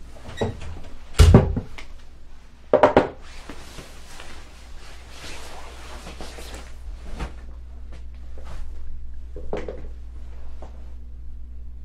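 Thumps and knocks of people moving about in a small room: a heavy thump about a second in, two sharp knocks near three seconds, then rustling and a few softer knocks, over a steady low hum.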